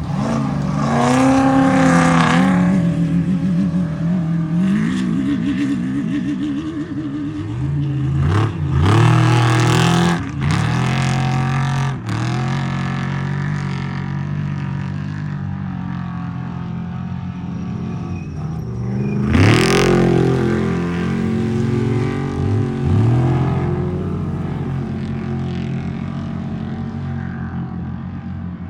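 Off-road race truck engines running and revving hard, with several rises in revs: about a second in, around eight to ten seconds in, and loudest at about two-thirds of the way through.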